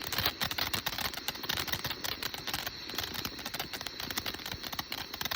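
Small consumer firework crackling and sputtering: a rapid, continuous stream of sharp little pops.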